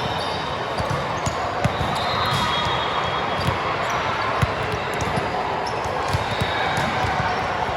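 Echoing gym noise with balls repeatedly thumping on the hard court floor, a few brief sneaker squeaks and a murmur of voices in the hall.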